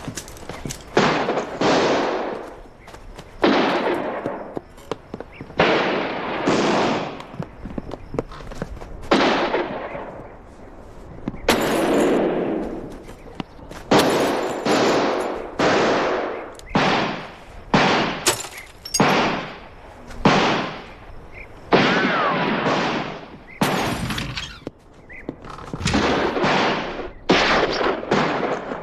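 Gunshots in a shootout, about twenty over the stretch at uneven spacing, sometimes two or three in quick succession. Each is a sharp crack with a long echoing tail.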